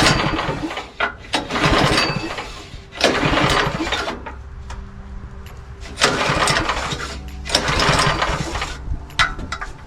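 Craftsman tiller's four-stroke engine being pull-started by hand about five times, each yank of the recoil starter cranking it over for about a second. The engine fails to start on these pulls.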